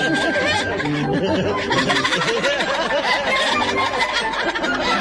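Several cartoon voices giggling and chattering without clear words, over light background music.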